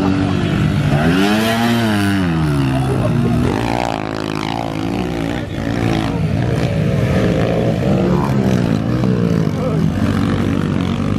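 Several small pit bike engines revving as the bikes ride the dirt track, the pitch climbing and dropping with each twist of the throttle. There is one big rise and fall about a second or two in.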